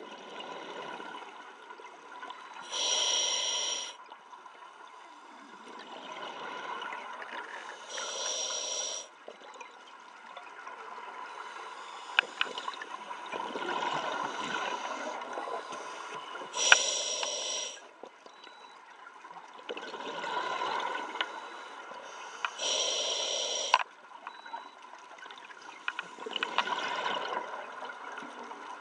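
Scuba diver breathing through a regulator underwater: a short hiss on each inhale, then a longer bubbling rush of exhaled air. The cycle repeats about every six seconds, four breaths in all.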